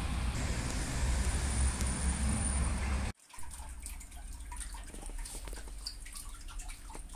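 Steady outdoor background noise with a low rumble, cut off abruptly about three seconds in and replaced by quieter room tone with scattered faint small clicks.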